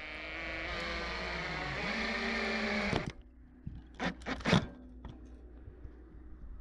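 Drill driving a screw through a galvanised steel antenna bracket into timber. Its motor whirs under load for about three seconds and stops suddenly as the screw seats. A few short sharp knocks and bursts follow around four and a half seconds in.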